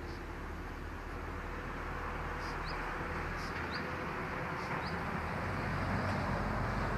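Outdoor ambience: a steady rushing noise that grows slightly louder, with a bird giving a short rising chirp a few times.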